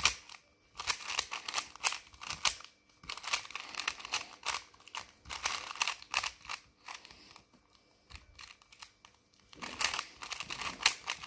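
3x3 Rubik's cube being twisted fast: quick runs of plastic clicks and rattles as the layers turn, in bursts with short breaks. The clicking thins out for a couple of seconds past the middle, then a last fast flurry comes near the end.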